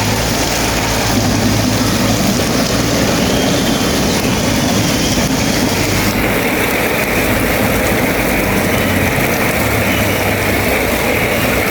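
Bulldozer's diesel engine running steadily with a low hum. About six seconds in, the high hiss over it drops away.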